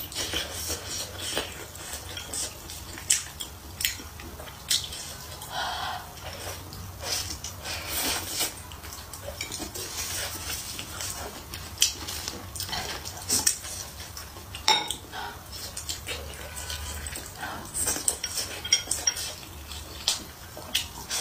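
Close-miked eating: chopsticks clicking and scraping against a ceramic bowl, with chewing and slurping of noodles and rice in short bursts. A faint steady low hum runs underneath.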